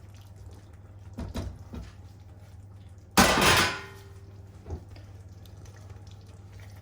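Cooking utensil knocking and scraping against a pan of curry: a few light knocks, then one loud clatter a little after three seconds, and another knock near five seconds.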